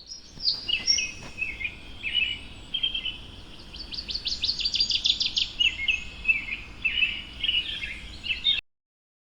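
Small birds chirping and singing in quick high notes, with a fast trill of repeated notes in the middle; the sound cuts off suddenly near the end.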